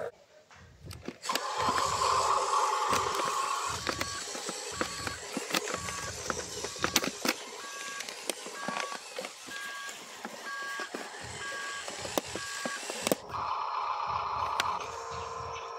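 Small RC dump truck driving loaded over dirt and dry sticks: its electric drive whines, with crackling and clicking from the tyres on twigs. For most of the middle a repeating two-note electronic beep, like a reversing alarm, sounds over it.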